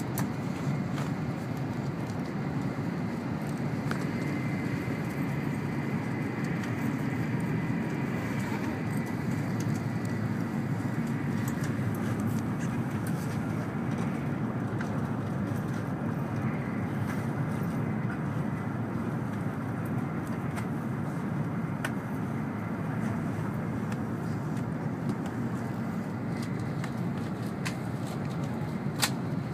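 Steady rumble and rush of an N700-series Shinkansen running at speed, heard inside the passenger cabin, with a faint high whine from about four to twelve seconds in and a sharp click near the end.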